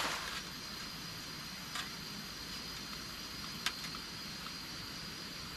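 Quiet outdoor background: a steady hiss with a thin, steady high tone, as the stream noise drops away at the very start. Two small clicks come about two and three and a half seconds in.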